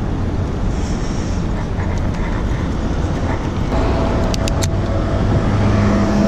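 Steady traffic and road noise while riding a bicycle along city streets, with a few sharp clicks about four and a half seconds in. Background music with steady held notes comes in about two-thirds of the way through.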